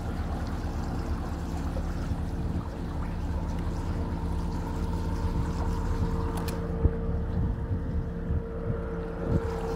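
A pontoon boat's motor runs with a steady hum, under wind rumble on the microphone and water rushing past the boat.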